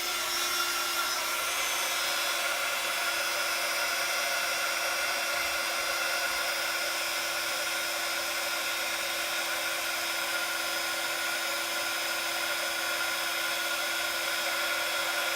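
Embossing heat tool blowing hot air steadily, a rush of air over a constant hum. It is melting white embossing powder on a sentiment stamped in Versamark ink.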